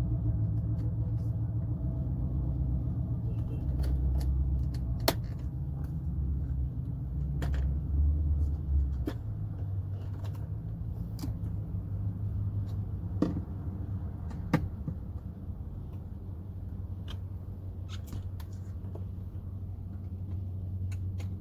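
Sharp clicks and light knocks of car door parts being handled and fitted during reassembly, every few seconds, over a steady low rumble.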